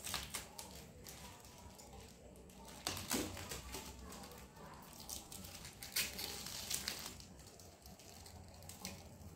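Packaging wrap crinkling and tearing as it is peeled by hand off a scooter's rear turn-signal light. The rustles come in short uneven bursts, with a few louder ones about three, six and seven seconds in.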